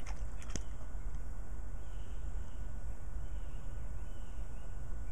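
Light splashes and clicks of water in a shallow plastic dish as a hand paddles in it, in the first second, over a steady low outdoor rumble.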